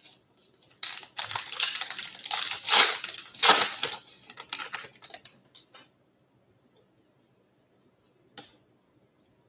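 A sealed trading card pack's crimped wrapper being torn open and crinkled by hand: a run of loud crackling for about five seconds, then a single light tap near the end.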